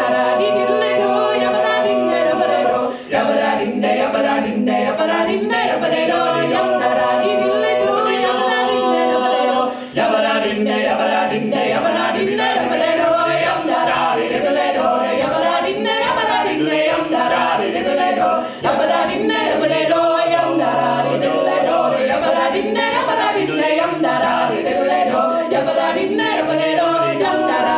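Four-part a cappella folk singing by a mixed group of two men and two women in close harmony, unaccompanied by instruments, with a few brief gaps between phrases.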